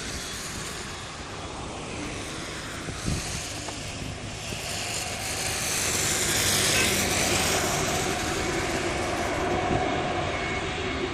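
Jet airliner on final approach passing low overhead, its engine noise building to a peak about six to seven seconds in, then easing slightly.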